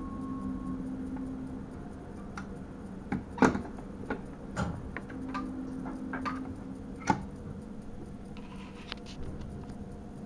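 Inside the driver's cab of a Sprinter electric train: a steady electrical hum with a scatter of sharp clicks and knocks at uneven intervals, the loudest about a third of the way in and again about two thirds in.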